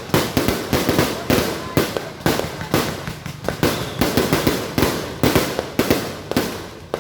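Fireworks going off in a rapid, irregular string of sharp bangs, two or three a second.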